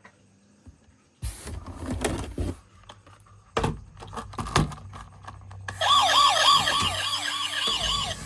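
Clicks and knocks from plastic toys being handled. About six seconds in, a toy emergency vehicle's electronic siren starts, a fast rising-and-falling warble.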